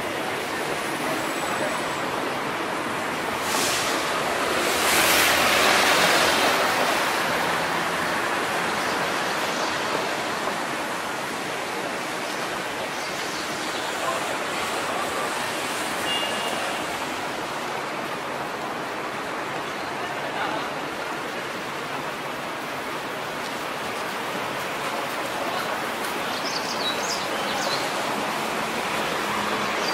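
City street ambience: a steady hiss of traffic and outdoor noise, swelling louder for a few seconds about four seconds in, as a vehicle passes.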